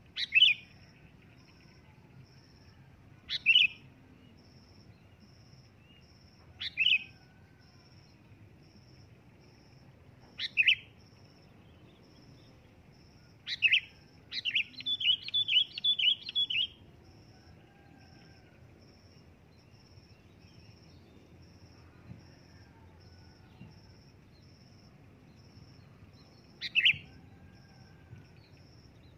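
Sooty-headed bulbul calling loudly: single short call notes about every three seconds, then a quick run of about eight notes around the middle, and one more call near the end.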